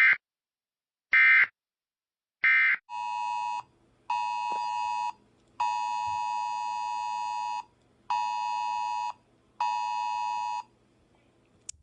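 Emergency Alert System data: three short, screechy digital bursts, then the pulsed emergency attention tone sounding as five steady beeps, the middle one about twice as long as the others.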